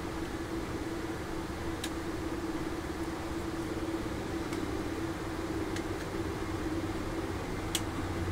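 Steady mechanical hum, like a room fan, with four short sharp clicks of plastic model-kit parts and tools being handled on the bench; the loudest click comes near the end.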